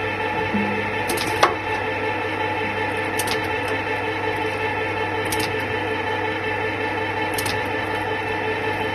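Charcoal briquette extruder running steadily, its electric motor and gearbox giving a constant hum. There is one sharp click about a second and a half in, and fainter ticks come about every two seconds.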